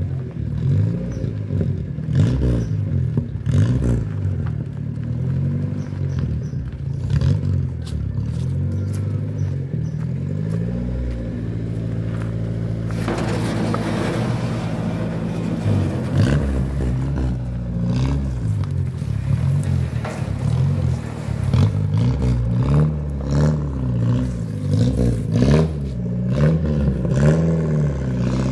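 1971 Ford Corcel's four-cylinder engine running at low revs while the car is backed up and manoeuvred, its note rising and falling with the throttle. Scattered clatter and clicks run through it, with a stretch of hiss about halfway through.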